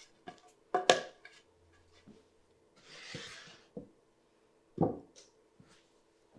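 Wooden skirt boards and table legs knocking as they are handled and fitted together: a few sharp knocks, the loudest about a second in and another near five seconds, with a brief rustling slide around three seconds.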